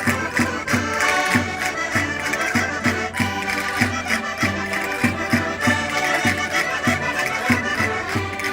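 Portuguese concertinas (diatonic button accordions) playing a lively traditional Minho folk tune, with reedy chords over an even bass beat of about three notes a second.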